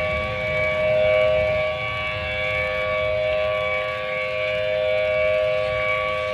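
Emergency warning alarm sounding a steady, unchanging chord of two low notes with higher overtones, its loudness slowly swelling and easing, over a low rumble.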